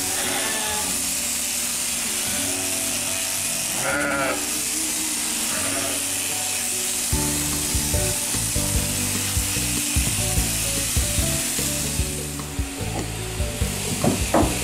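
Sheep bleating a few times with quavering calls, loudest about four seconds in, over the steady high buzz of electric sheep-shearing clippers. Background music joins from about halfway.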